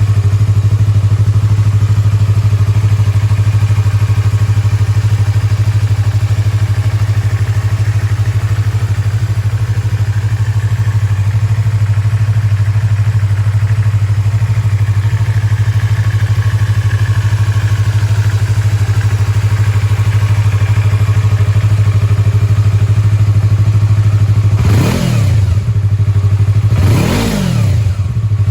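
Yamaha YZF-R25's parallel-twin engine, fitted with a BEAMS aftermarket silencer, idling steadily. Near the end it is blipped twice, about two seconds apart, each a quick rev that rises and falls back to idle.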